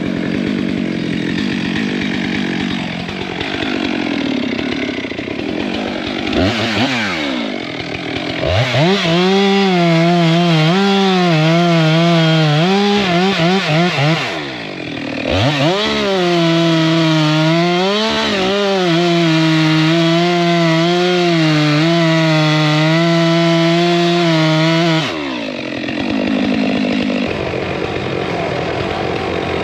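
Chainsaw revving up and cutting at full throttle in two runs, its high engine note dipping and wavering as the chain bites into wood, with a brief drop between the runs about halfway through. A rougher, lower engine noise fills the first few seconds and the last few.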